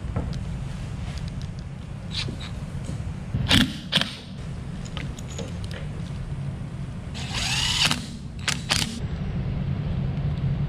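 Motorcycle handlebar controls being assembled: a steady low hum with sharp clicks and knocks of the brake master cylinder and clamp being handled, and a short whirr rising in pitch about seven seconds in from a cordless drill-driver spinning up.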